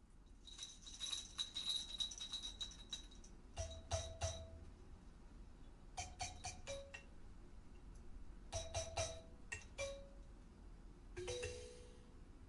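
Kalimba played solo: a jingling rattle for the first few seconds, then short runs of plucked metal tines, a few notes at a time with pauses between, each note ringing briefly.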